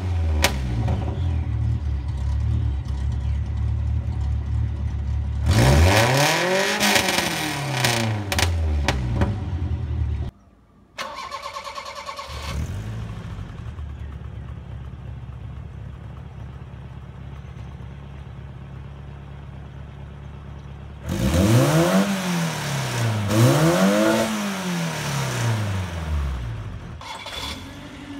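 Toyota 2T four-cylinder engine with a stock carburettor idling through a modified exhaust with a resonator, blipped once to a rising and falling rev. After a short break about ten seconds in, it idles more quietly, then is revved up and down twice.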